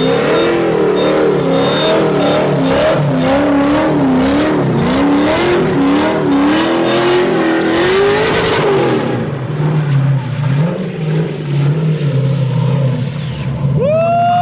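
LS3 V8 in a Nissan 240SX drifting with its tires spinning, the engine pitch swinging up and down as the throttle is worked. About nine seconds in the engine drops back to a steady idle. Near the end comes a brief rising-and-falling high call.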